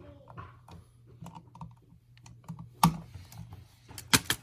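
Small scattered clicks and taps of a ground wire being worked under the green ground screw of a wall outlet, with a sharper click about three seconds in and a quick pair of clicks near the end, over a faint steady low hum.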